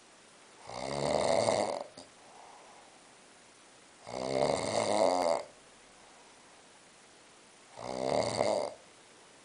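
A sleeping man snoring: three snores, spaced about three and a half seconds apart, each lasting a little over a second.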